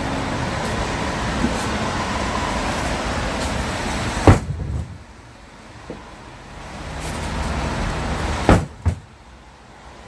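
Mesh bags of split firewood dropped onto a wooden deck: a heavy thump about four seconds in, then another landing with a double knock near the end, over steady background noise.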